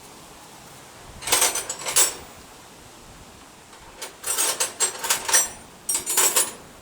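Metal hand tools clinking and rattling against each other, in two bouts of jangling: a short one about a second in and a longer one a few seconds later.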